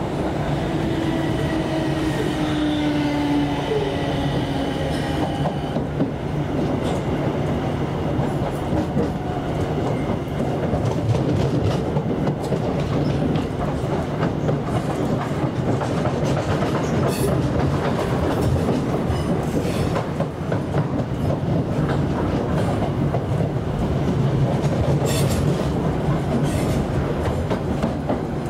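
Inside a South Western Railway Class 455 electric multiple unit running over the tracks: a steady rumble of wheels on rail with clicks over joints and points. A motor whine falls in pitch over the first few seconds as the train slows for a station stop.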